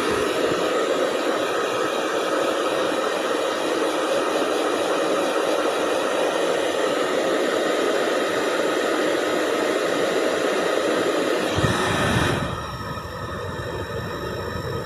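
Hair dryer blowing with a steady rushing hiss. About twelve seconds in, the sound shifts to a quieter, thinner hiss with a faint high whine, as if the dryer is switched to a lower setting or turned away.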